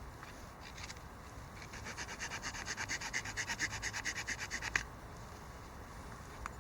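Small saw blade of a Leatherman Wave+ multitool sawing through a thumb-thick branch. Quick, even back-and-forth strokes, about six a second, run from about one and a half seconds in and stop sharply about five seconds in.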